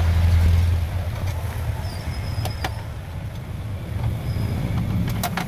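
A low, steady rumble, strongest in the first second and then easing, with a few sharp light clicks around the middle and near the end.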